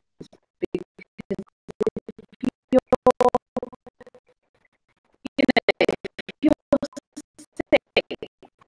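A voice over an internet video call breaking up into stuttering, chopped fragments of unintelligible speech with glitchy clicks, with a short gap about halfway: the call's audio is dropping out.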